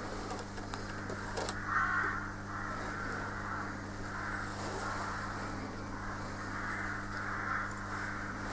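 High-voltage transformer humming steadily while the current fizzes and crackles across the wooden bowl, burning fractal Lichtenberg patterns into it. The fizzing begins about a second and a half in and swells and fades unevenly.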